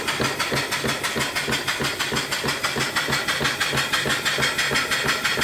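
Antique horizontal steam mill engine, from about 1890 and held at speed by a flyball governor, running steadily on steam. It makes an even, rapid rhythmic beat over a constant hiss of steam.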